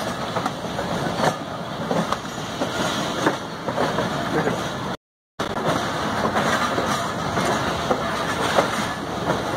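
Train wheels running over rail joints and yard points, heard from inside a moving passenger coach: a steady rolling noise with irregular clicks and clacks. The sound cuts out completely for a moment about five seconds in.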